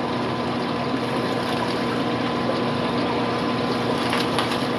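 Steady hum and rushing-water noise of aquarium pumps and filtration running in a fish room, with a faint crinkle of a plastic fish bag near the end.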